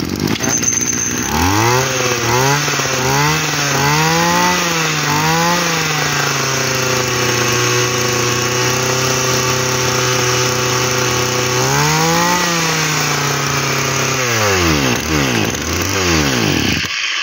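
Tanaka 20cc two-stroke brush cutter engine running after being primed. It is revved up and down several times, then held steady, revved once more, and throttled down until it stops near the end. The seller judges the engine sound healthy.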